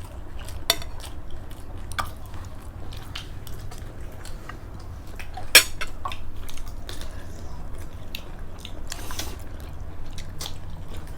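People eating: chewing and biting, with scattered short clicks of utensils against plates. A sharp clink about five and a half seconds in is the loudest sound.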